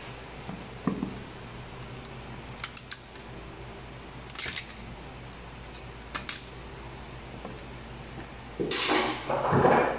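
Small clicks and taps from handling a plastic 3-gang wall switch and its cover plate with a screwdriver, then a longer, louder rattle near the end.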